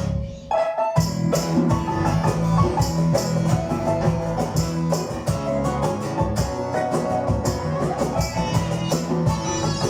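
Live band playing an instrumental passage with guitar and a steady beat. There is a brief break about half a second in, then the band comes back in.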